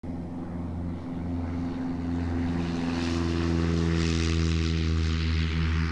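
Propeller-driven light aircraft engine running steadily, a drone of even tones with a propeller hiss that grows a little louder over the first few seconds.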